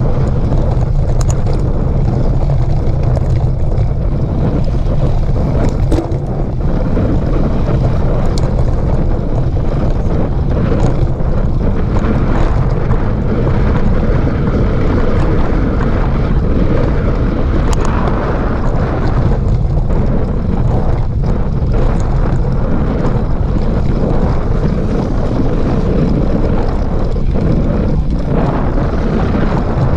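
Loud, steady wind rumble on the microphone while a mountain bike rides over a dirt trail, with scattered small clicks and rattles throughout.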